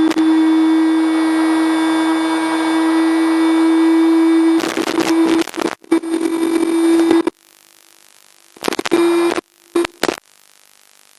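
Electromagnetic hum from a BYD D9RA electric bus's IGBT VVVF traction inverter, picked up by an inductor coil: a steady buzzing tone in a wash of hiss. The hiss comes from interference with the auxiliary supply built into the 2-in-1 traction and auxiliary converter. About four and a half seconds in it breaks up and cuts out to a faint hiss, then comes back in two short bursts near the end.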